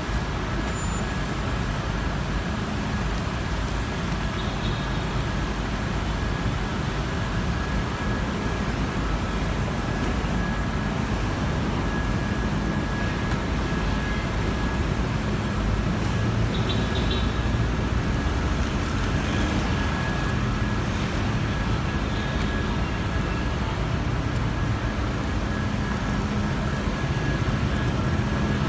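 Steady city street traffic noise: car engines running and vehicles moving on the road, an even rumble with no sudden events.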